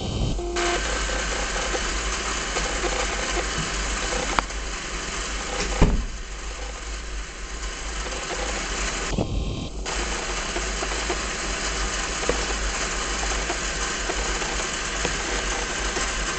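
K'nex roller coaster lift-hill chain, driven by a small electric motor, running steadily, with a couple of sharp clicks partway through.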